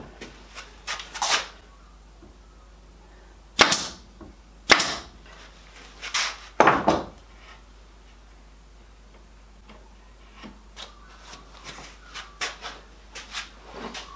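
Wooden parts handled on a workbench: a few light clicks, then four sharp knocks of wood on wood in the middle, followed by a run of small taps and clicks near the end.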